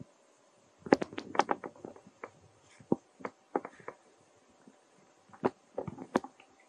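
A baby macaque eating a piece of fruit among dry fallen leaves: irregular crisp clicks and crackles, a dense run about a second in, then scattered single ones.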